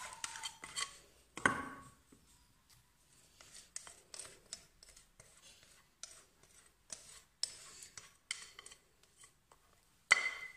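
Whisk scraping cake batter out of a glass mixing bowl into a glass baking dish: irregular short scrapes and light taps against the glass.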